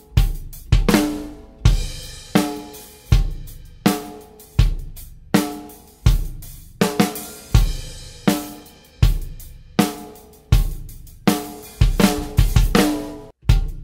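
Drum kit playing a steady groove, with bass drum kicks roughly every 0.7 s under snare, hi-hat and cymbal hits; a soundcheck of a bass drum beater on the kick drum.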